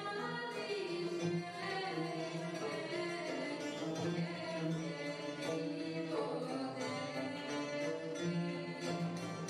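Live traditional folk ensemble music: a metal-bodied goblet drum (darbuka) plays a steady rhythm under string-instrument melodies.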